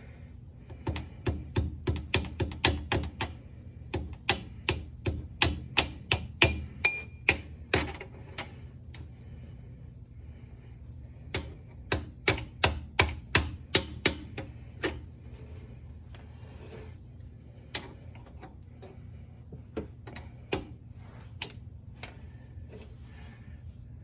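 Hammer tapping the spool and its side shims into a Ford 8.8 rear axle housing: two runs of sharp metallic taps, about two to three a second, each with a short ring, followed by scattered single taps near the end.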